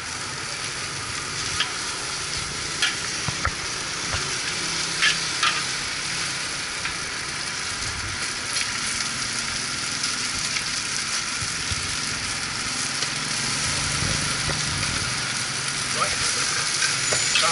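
Char kway teow (flat rice noodles with bean sprouts) sizzling in a charcoal-fired wok, with a metal spatula scraping and clacking against the wok now and then.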